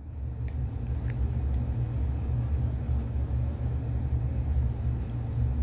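A steady low rumble, with a few faint clicks in the first two seconds.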